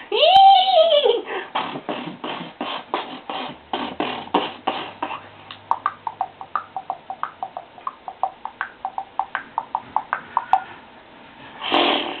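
Mouth-made sound effects: a voiced train-whistle 'whoo' rising and falling, then rhythmic breathy chuffing like a steam train, about three puffs a second. The chuffing gives way about halfway through to tongue clicks, about two or three a second, imitating a horse's hooves. A short loud noisy burst comes near the end.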